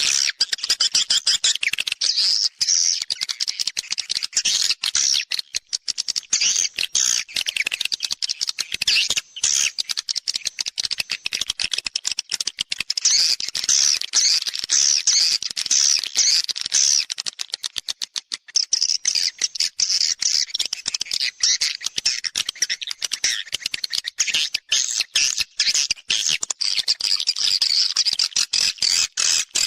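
Swiftlet-house lure recording of edible-nest swiftlets: a dense, continuous chatter of rapid high twittering calls. It is the 'external' sound played from outside speakers to draw swiftlets into the house to nest.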